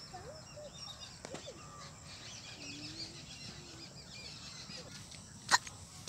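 Small birds chirping and calling in the open, thickest in the middle of the stretch, over a faint outdoor background. A single short, sharp sound near the end is the loudest event.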